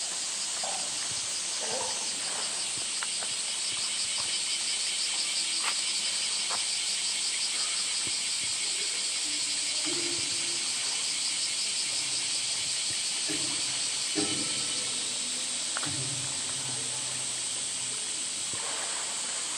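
Steady, sizzling high hiss of a midsummer cicada chorus with a fine pulsing texture, and a few faint low sloshes of water now and then.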